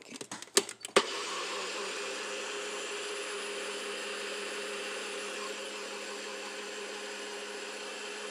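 A single-serve blender: a few clicks as the cup is pressed onto the base, then about a second in the motor starts and runs steadily with a constant whine, pureeing fried tomato and vegetables into a sauce.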